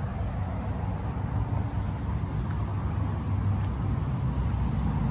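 Steady low motor-vehicle rumble with no clear change.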